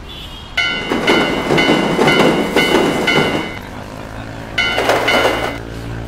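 Train running on rails, its wheels clacking in a rhythm of about two beats a second with a ringing tone on each beat. The clacking dies away about halfway through, leaving a low hum, then briefly returns near the end.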